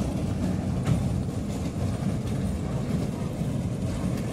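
Small children's ride train rolling along its miniature steel track: a steady low rumble, with a light click about a second in.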